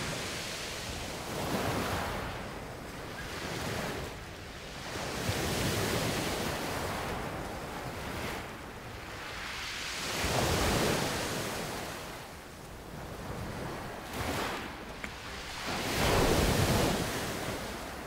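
Sea waves breaking and washing onto the shore: a rushing swell every few seconds that builds and falls away, the biggest one near the end.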